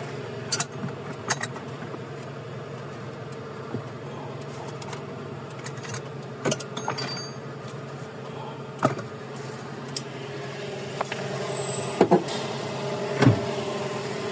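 Toyota 1RZ four-cylinder petrol engine idling steadily, with a few sharp clicks and knocks over it.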